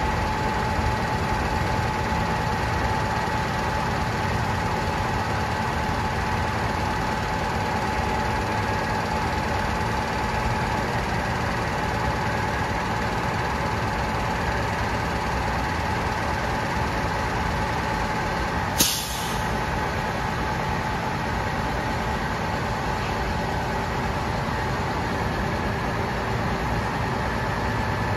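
Heavy diesel vacuum truck running steadily with its hydraulic boom being raised and swung out, with a steady hum carrying a few fixed tones. About two-thirds of the way in, one sudden short burst of air hiss.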